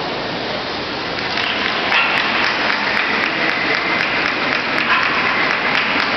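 Spectators clapping, the applause swelling about two seconds in and carrying on.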